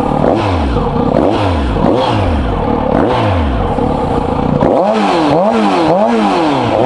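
Kawasaki Z900RS inline-four through a K-FACTORY CLR-RG+ titanium full exhaust, revved at a standstill in repeated throttle blips, each rising and falling back. They come about once a second at first, then quicker, about two a second, from a little over halfway. The exhaust note is high-pitched.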